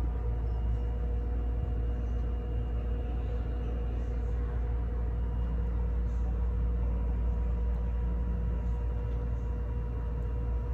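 Steady low mechanical rumble with a faint constant hum over it, unchanging throughout.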